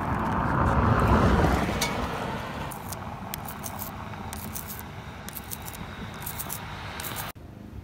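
A vehicle passes, swelling and fading over the first two seconds. Then an ink roller is worked back and forth across a cast-iron manhole cover, short repeated hissing strokes, until the sound cuts off abruptly near the end.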